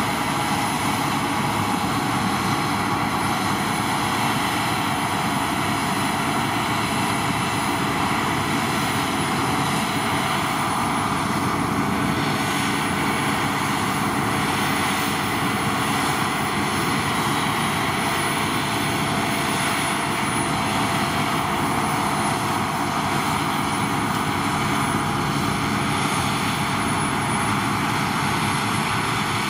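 Claas Lexion 670 Montana combine harvester working in oats, cutting, threshing and spreading straw. Its engine and machinery run at a steady, unbroken drone throughout.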